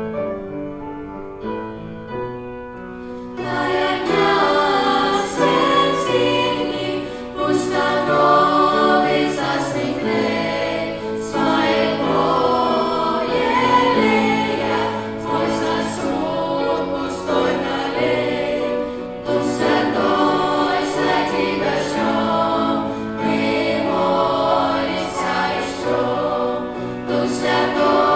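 A children's and youth choir sings a worship song into microphones over instrumental backing. The voices come in about three and a half seconds in, after a quieter instrumental lead-in.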